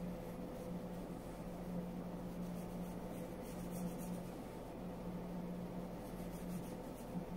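A paintbrush stroking paint onto a small ball makes faint, scratchy strokes over a steady low hum in the room.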